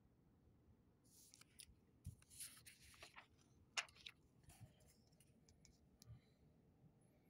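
Faint rustling and handling of paper sheets, with scattered small clicks and one sharper tap about four seconds in.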